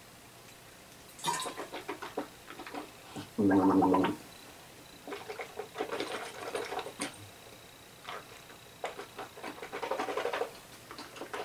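A man swishing and gargling a mouthful of water, rinsing his palate after hot sauce, in irregular wet spells. A short, loud vocal sound about three and a half seconds in is the loudest thing.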